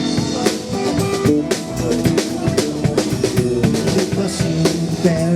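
Band playing an instrumental passage without vocals: a drum kit keeps a steady beat of kick and snare hits under sustained pitched instrument notes.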